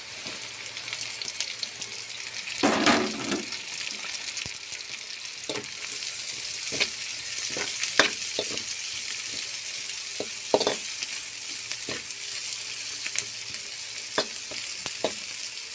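Chopped chilies, garlic and onion sizzling in hot oil in a wok, with a steady high hiss and frequent short scrapes and taps of a wooden spatula stirring against the pan. A louder burst of noise comes about three seconds in.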